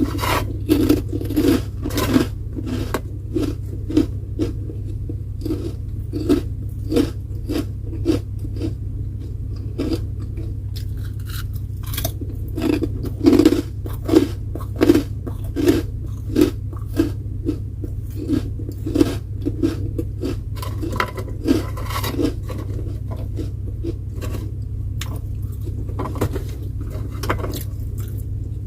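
A person chewing crunchy food close to the microphone, with crisp crunches at about two a second. A steady low hum runs underneath.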